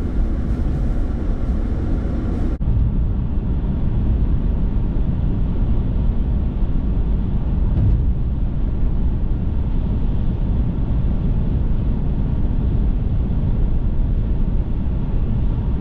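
Steady low road and engine noise of a car being driven, with a brief dropout about two and a half seconds in.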